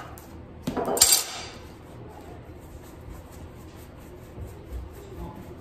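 A steel chef's knife knocks against a stone countertop twice in quick succession about a second in, as it cuts through bread dough and is put down. Afterwards only faint soft sounds of hands rolling the dough on the counter.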